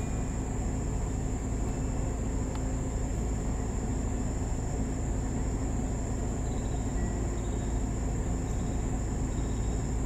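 Car driving at low speed, a steady low rumble of engine and tyres on the road, with a continuous high-pitched chorus of insects such as crickets.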